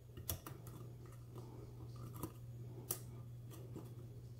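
Faint, scattered ticks and clicks of a steel steep hook pick probing and lifting the pins inside a pin-tumbler lock cylinder held under tension, over a low steady hum.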